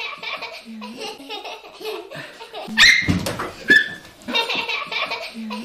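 Young children giggling and laughing, with a louder, sharper burst of voice about three seconds in.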